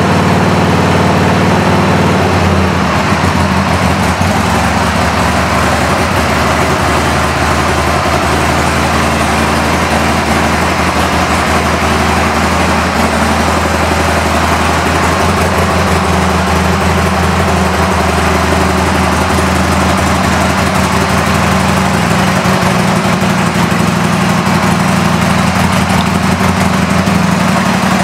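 Harley-Davidson XL883 Sportster's air-cooled V-twin engine running steadily.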